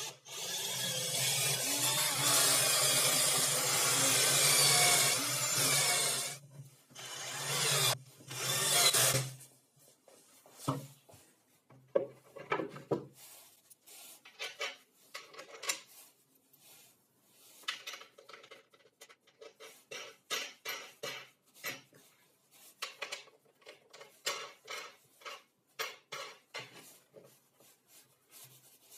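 Wood being worked with an abrasive tool: a continuous grinding run of about six seconds with a low hum under it, two shorter bursts, then a long series of quick rubbing strokes, several a second, like sandpaper or a rasp on wood.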